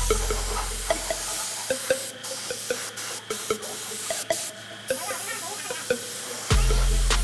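Background music with a deep bass note that drops in pitch about six and a half seconds in, over a steady hiss with scattered clicks.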